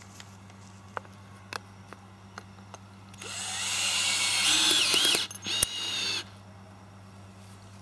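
Ryobi cordless drill screwing a large plastic screw-in ground peg into turf through an aluminium awning foot plate. It runs for about two seconds with a whine that climbs in pitch, stops with a click, then gives one short second burst. Before that there are a few light clicks as the peg is fitted to the drill.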